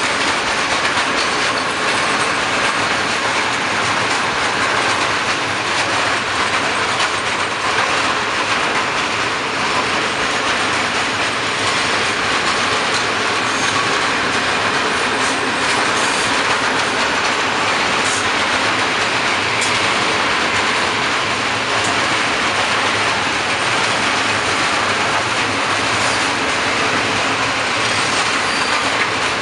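A long freight train of loaded open coal wagons rolling past at speed, with steady wheel and rail rumble and clickety-clack, and now and then a brief high wheel squeal.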